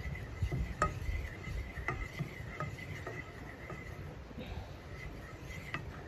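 Wooden spatula pushing melting butter around a frying pan on a wood stove, scraping with a few sharp taps against the pan.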